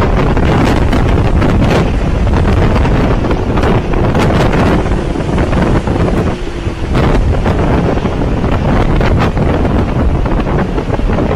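Hurricane wind blowing loudly across the microphone, a dense rushing buffet with many short, sharp gusts.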